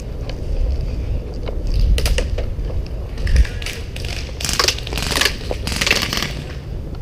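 Footsteps crunching on a dirt field, an uneven string of steps, over a low steady rumble.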